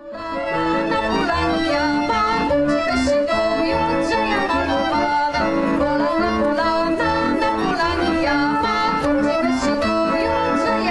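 Instrumental folk dance music with many pitched lines over a steady, regular bass pulse, fading in at the very start.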